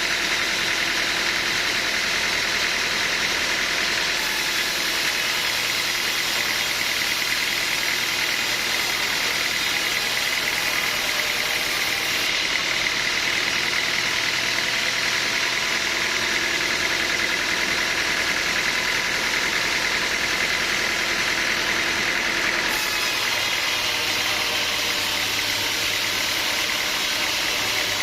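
Sawmill machinery running steadily with a constant mechanical whine.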